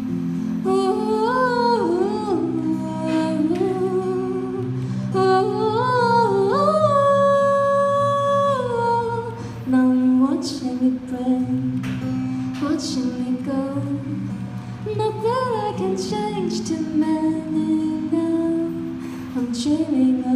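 A woman singing a slow melody with slides and a long held note about seven seconds in, over a strummed acoustic guitar, amplified through a small PA.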